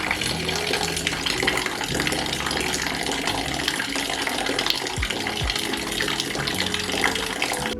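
Water being poured out into a bucket, a steady splashing that stops just before the end. It is stale water that had collected inside a fridge.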